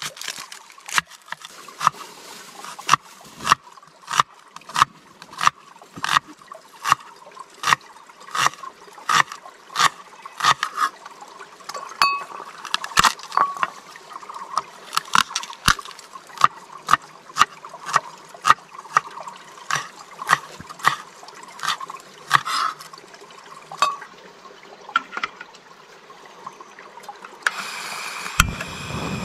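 Breakfast cooking at camp: a run of sharp ticks or taps, about one to two a second, over a faint watery hiss. Near the end it gives way to a denser, steadier noise.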